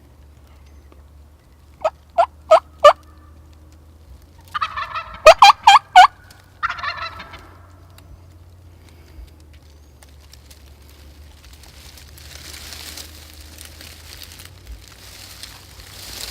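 Wild turkey calling: four short sharp yelps, then a loud rattling gobble about four and a half seconds in and a shorter gobble right after. Soft rustling follows near the end.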